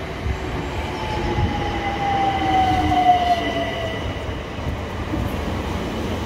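Southeastern Class 376 Electrostar electric train pulling into the platform and slowing: a whine that slowly falls in pitch as it brakes, over a low rumble of the wheels on the rails.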